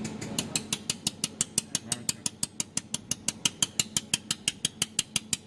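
Desktop jewelry laser welding machine firing repeated pulses, a sharp click with each laser pulse at a steady rate of about six a second, the pulse frequency set to 5 or 6 per second.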